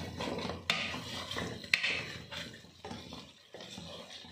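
Wooden spatula stirring and scraping chicken pieces around a metal pan as they fry, with sharp knocks of the spatula against the pan about 0.7 and 1.7 seconds in.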